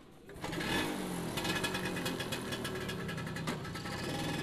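Vespa scooter engine running close by, with a fast even ticking beat. It comes up about half a second in, rises in pitch briefly, then runs steadily.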